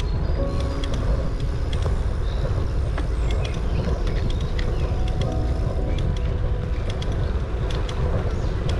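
Steady low rumble of riding a bicycle over a paved path, wind and tyre noise picked up by the rider's camera, with scattered light ticks.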